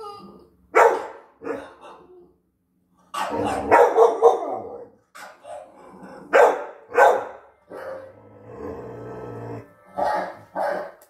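Six-month-old pit bull barking at dogs on a television, in a string of short, loud barks with a denser run of them about three to four and a half seconds in.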